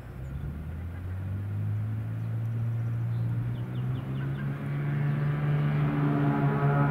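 Cessna U206E Skywagon's six-cylinder piston engine and propeller running as the plane taxis, a steady drone that rises slightly in pitch and grows steadily louder.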